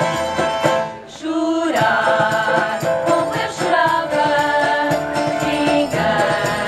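Portuguese folk group playing live: women's voices singing together over instrumental accompaniment, with the jingles of a tambourine. The music drops off briefly about a second in, then the singing comes back in.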